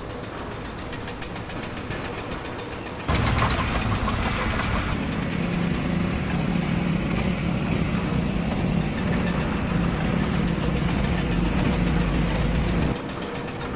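An engine running steadily with a low hum, starting abruptly about three seconds in and cutting off abruptly near the end.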